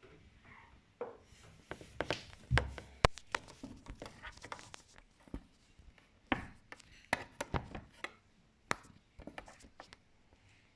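Daewoo washing machine during its cycle, giving off scattered, irregular clicks and knocks, with a heavier low knock about two and a half seconds in and a sharp click just after; no steady motor hum.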